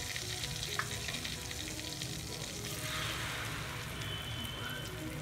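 Hot oil and butter sizzling and crackling in a kadai with whole spices and chilli powder. About three seconds in, the hiss swells as the ground onion-tomato paste is poured into the hot oil.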